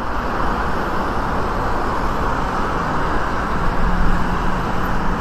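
Steady city traffic noise from cars on a wide street, with a low steady hum joining about three and a half seconds in.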